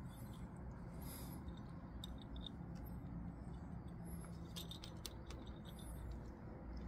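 Quiet background with a few faint clicks and soft rustles, from a dog being held and handled.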